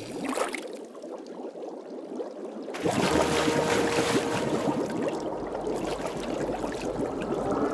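Cartoon sound effect of water rushing and gurgling, jumping much louder about three seconds in.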